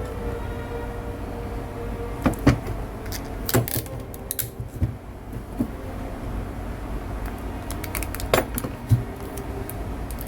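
Scattered sharp clicks and light knocks, about seven of them spread irregularly, over a steady low hum.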